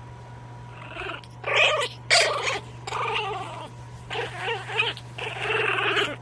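Chihuahua puppy's high-pitched vocalising, a string of squeaky growls and whines in quick succession, starting about a second in, as it play-bites a hand.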